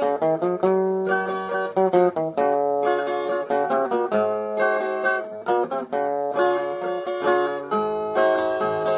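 Instrumental break in a romantic Brazilian song: plucked guitar-like strings play a melody over held notes, with no singing.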